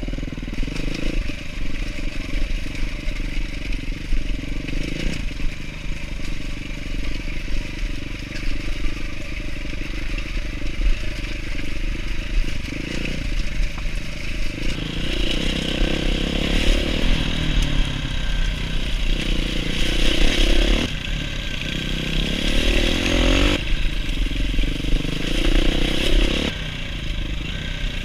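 Dual-sport motorcycle engine under way on a rough gravel trail, its pitch repeatedly climbing and then dropping back as the rider works the throttle and gears. A hiss of air and tyre noise grows louder about halfway through.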